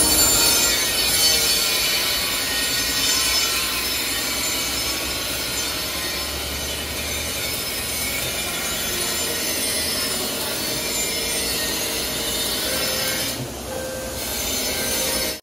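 A power tool grinding steel: a loud, steady abrasive grinding noise with a shrill metallic edge. It thins briefly near the end.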